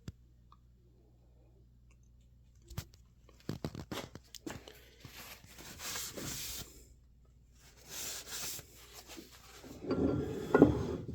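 Packaging being handled and torn open around a bench vise: a few clicks, then patches of rustling and tearing, with several knocks and clunks near the end.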